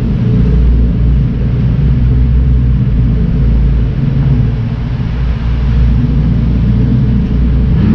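Straight-piped Ford GT's supercharged 5.4-litre V8 running at low revs as the car drives, a steady low exhaust note with no sharp revs.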